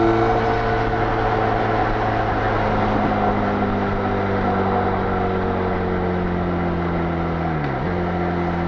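Benelli Leoncino 500's parallel-twin engine on its stock exhaust, running hard at highway speed over wind and road noise. The engine note sinks slowly, then dips sharply and comes back slightly lower near the end.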